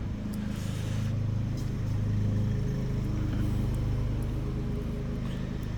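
Steady low engine-like hum, with a few faint light ticks of a pick and tension wrench working the pins inside a padlock.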